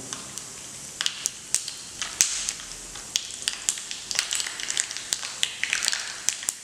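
Tempering frying in hot oil in a small steel pan: a steady sizzle with sharp crackling pops from mustard seeds spluttering among frying chana dal and urad dal. The pops come thicker from about four seconds in as the seeds heat.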